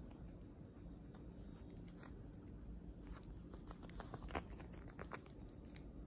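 Yorkshire terrier chewing and biting on something, a scatter of crunching clicks that comes thickest from about three to five seconds in, the loudest just past four seconds.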